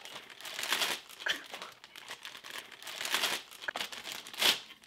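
Clear plastic zip-top bag crinkling and rustling as it is handled and its contents are shaken about, in irregular bursts with a louder crinkle near the end.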